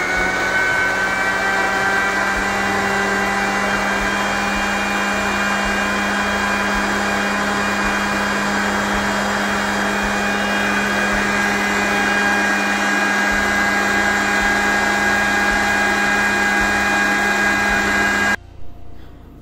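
Electric countertop blender motor running steadily as it purees cooked potato and leek soup, then cutting off abruptly about a second before the end. Two brief knocks follow just after it stops.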